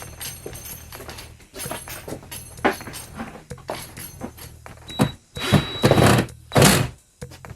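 Irregular knocks and thuds with scraping noises, and several louder, longer rough scrapes in the last few seconds.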